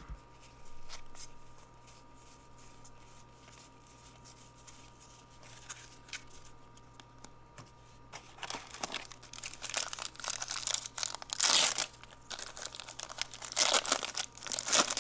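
Plastic wrapper of a 1992 Fleer jumbo card pack crinkling as the pack is pulled from the box and torn open. The crinkling starts about halfway through and comes in loud bursts. Before it there are only a few soft clicks of cards being handled.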